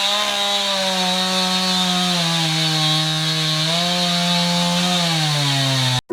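Chainsaw engine running at high revs, its pitch dropping and rising a few times, then cutting off abruptly near the end.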